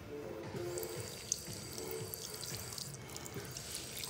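Automatic sensor faucet running a thin stream of water onto a hand and into a sink.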